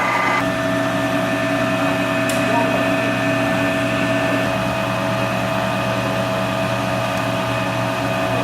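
American engine lathe running under power, its drive giving a steady whine of several fixed tones that shift to a new set about half a second in, as when the spindle speed changes.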